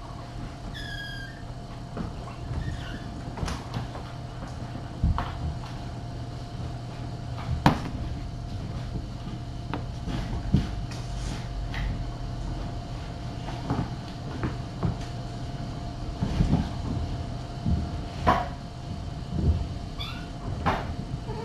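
Kittens at play: scattered light thumps and knocks as they jump about and wrestle on and around a carpeted cat tree, over a steady low hum. A short, high kitten mew about a second in, and another near the end.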